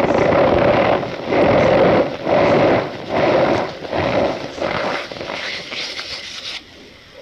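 Compressed cornstarch being crushed and squeezed by hand, giving a squeaky crunch. It comes as a series of about seven squeezes, roughly two-thirds of a second apart, and stops sharply near the end.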